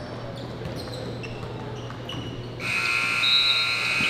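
Gymnasium basketball scoreboard horn: a loud, steady buzz that starts about two and a half seconds in. Before it, court noise with brief high sneaker squeaks.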